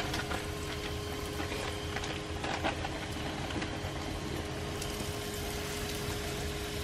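Floured crappie fillets frying in hot oil in a skillet: a steady sizzle with light crackling, over a faint steady hum.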